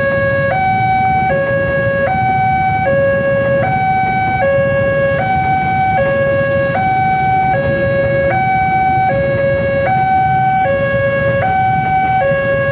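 Railway level-crossing warning alarm sounding its electronic two-tone signal, alternating between a low and a high pitch about every 0.8 s, over the low rumble of a passing commuter train and idling motorcycles.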